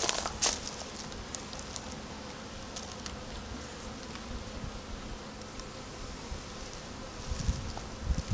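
Honeybees buzzing in a steady hum around an opened hive. Two sharp knocks come right at the start, and a few low thuds near the end.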